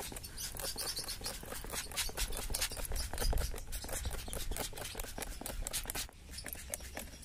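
Handheld trigger spray bottle squirted over and over in quick succession onto eggplant leaves, with a short pause about six seconds in.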